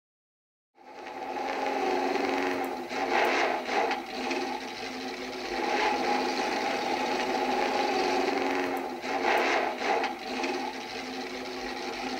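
An engine running steadily, swelling briefly in level about every three seconds.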